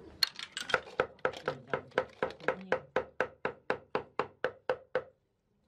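Apple snail shells clicking against a metal basin as they are handled, in a quick, even series of about four sharp clicks a second that stops shortly before the end.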